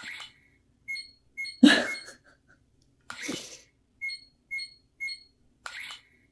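Dragon Ball Dragon Radar prop beeping electronically: short high beeps in sets of three about half a second apart, the radar's signal for a detected Dragon Ball. A couple of short breathy bursts fall between the beep sets.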